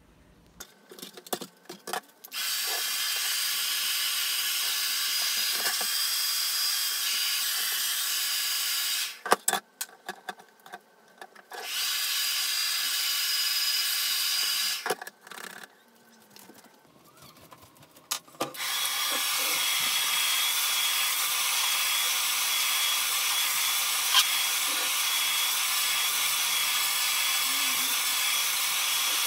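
Hand-held electric hot-air blower running in three stretches of several seconds, a steady hiss with a high whine, switched off in between with clicks and knocks of handling. It is heating a car's side mirror glass to soften the adhesive holding it.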